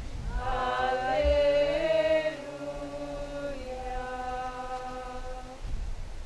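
Liturgical chant sung in long held notes. It is loudest over the first two seconds, then carries on in softer sustained notes that end about five and a half seconds in.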